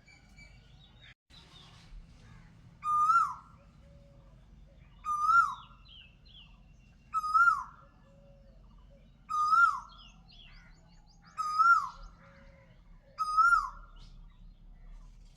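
A bird calling six times, about every two seconds; each call is a short held note that drops at the end. Fainter chirps from other birds come between the calls.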